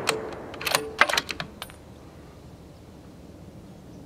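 Remington 700 bolt action being cycled between shots: a quick run of sharp metallic clicks and clacks in the first second and a half, with a ringing clink or two from the spent .308 case. At the very start the echo of the previous rifle shot is still dying away.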